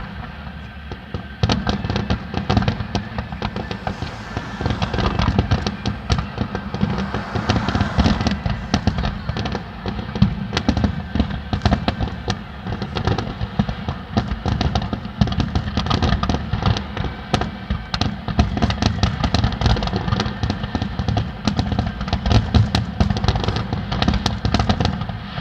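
Fireworks display in a continuous barrage: rapid, dense bangs and crackles, many per second, with no pause.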